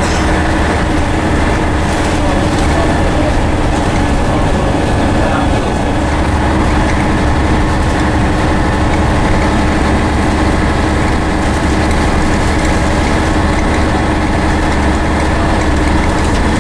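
Scania N113CRB bus's rear-mounted engine and Voith automatic gearbox running steadily at cruising speed, heard from inside the saloon as a steady low drone with road and rattle noise.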